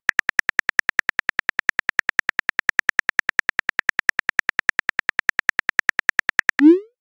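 Phone keyboard typing sound effect: a rapid, even run of clicks, about seven a second, as a text message is typed out. The clicks stop near the end and a short rising pop follows, the message-sent sound.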